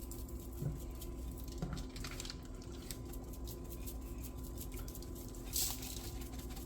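Faint clicks, rustles and squishes of raw marinated chicken pieces being turned and seasoned by hand, with a short hiss about five and a half seconds in, over a steady low hum.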